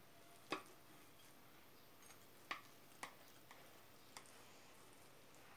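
A metal cake server working a slice out of a glass baking dish: about five short, light clicks and taps scattered through otherwise near silence, the clearest about half a second in and about two and a half seconds in.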